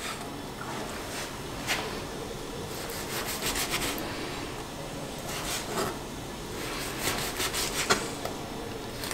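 Chef's knife sawing through grilled flank steak on a cutting board, slicing it into strips: rasping knife strokes in short bursts every second or two.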